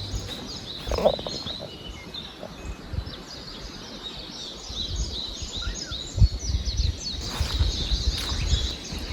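Many small birds chirping and calling together in a dense morning chorus, with a low rumble and a few dull bumps underneath, the loudest about six seconds in.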